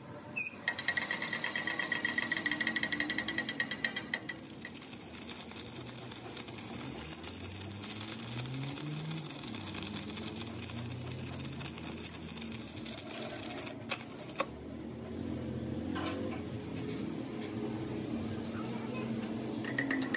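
Arc welding on a truck driveshaft joint: a steady crackling hiss through the middle of the stretch. A fast, even metallic clatter comes in the first few seconds and starts again at the very end.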